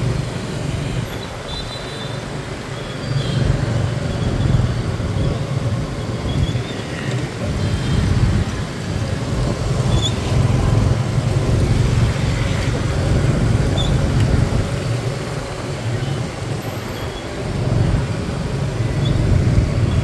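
Street traffic noise: a steady low rumble of passing vehicles that swells and eases.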